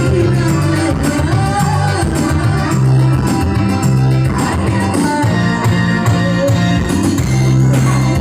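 Loud live organ tunggal music: a keyboard band playing through a sound system, with a strong bass line and a melody over it.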